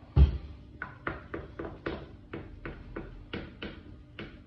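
A sharp knock just after the start, then a steady run of light clicks, about three a second: a knife tapping against a glass baking dish while cutting set semolina pudding.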